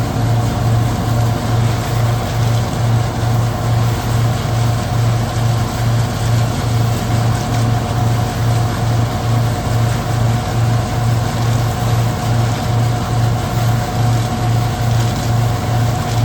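Hazelnut threshing machine (patoz) running steadily: a loud low throb pulsing a little over twice a second under a constant mechanical hum.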